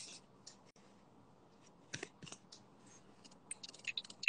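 Faint handling noise from a phone held close to its microphone: scattered small clicks and rustles, a short hiss at the start and a quick flurry of clicks near the end, over faint room hiss.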